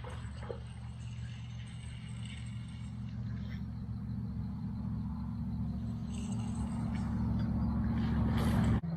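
A motor vehicle's engine running steadily with a low hum, growing gradually louder, then cut off abruptly near the end.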